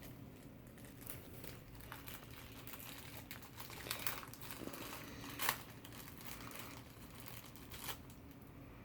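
Faint crinkling of packaging being handled and unwrapped, with a few sharper crackles, the loudest about five and a half seconds in.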